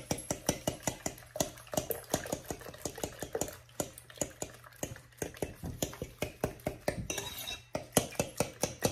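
Metal fork beating raw eggs and seasonings in a glass mixing bowl, clicking rapidly and steadily against the glass, several strikes a second.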